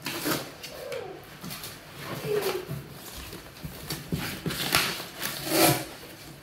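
Cardboard box packaging rustling, crackling and tearing as it is pulled open by hand, with three short, low falling sounds like cooing, the last one the loudest.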